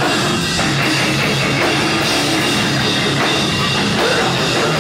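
A hardcore band playing loud, distorted electric guitars over a drum kit.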